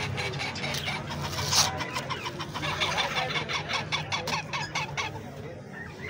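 Parrot chicks' begging calls: a rapid run of short repeated calls, several a second, from hungry chicks at feeding time. The calls thin out near the end.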